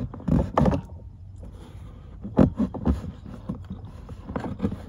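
Hands working a small rubber hose loose from the clips on an ATV carburetor: irregular knocks, rubs and rattles of handling, over a low steady rumble.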